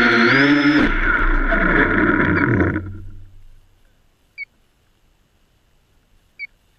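Electric motors and propellers of a home-built wooden H-frame quadcopter whining loudly, the pitch shifting with the throttle. About three seconds in they spool down and stop as the quad lands in the grass. Then there are three short high chirps, about two seconds apart.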